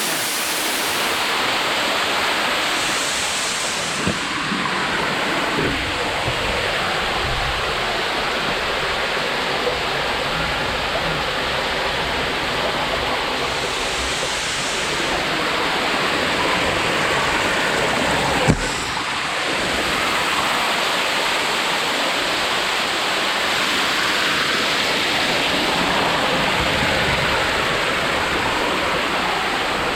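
Waterfall in heavy flow, about a 30-foot drop, making a steady rushing noise. A single sharp knock cuts through it about two-thirds of the way in.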